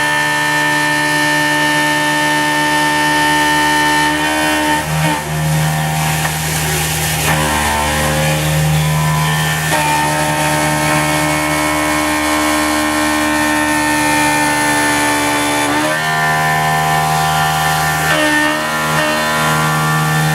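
A CNC milling machine's end mill cutting a facing pass across a solid metal block under coolant. The cut sings in steady tones, and the pitch shifts several times as the cut changes.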